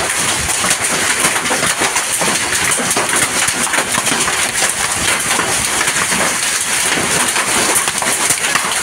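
Hail and rain falling on a waterlogged grassy field: a dense, steady patter of small hailstone impacts over the hiss of rain.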